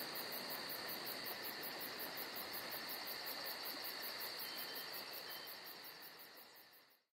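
Insects chirping in a fast, even pulse of about five a second over a steady high hiss, fading out near the end.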